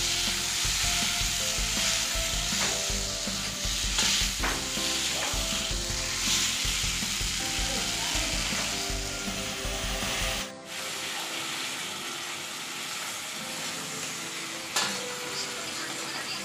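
Potatoes and green peas sizzling in hot oil and masala in a kadhai while being stirred, the wooden spatula scraping and knocking against the pan a few times. About ten seconds in, a low background sound cuts off suddenly and the sizzling goes on a little quieter.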